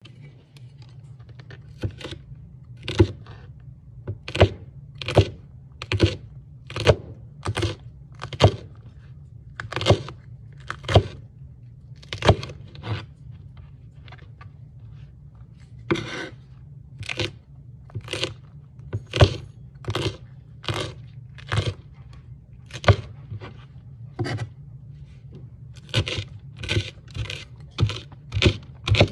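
A homemade ulu knife chopping yellow peppers on a cutting board: a steady series of sharp chops, about one or two a second, each a crisp crunch of the blade through the pepper onto the board. A steady low hum runs underneath.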